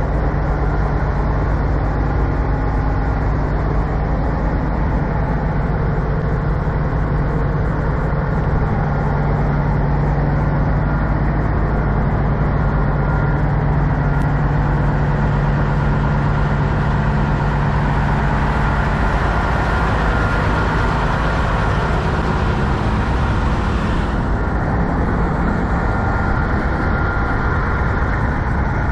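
Parked semi trucks' diesel engines idling with a steady low rumble. About two-thirds of the way through, a hiss swells up and then cuts off abruptly.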